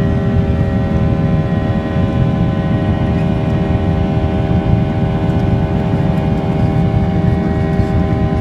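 Boeing 737-800's CFM56-7B turbofan engines at high thrust during the climb-out, heard from inside the cabin. A steady, loud low roar with several steady whining tones above it.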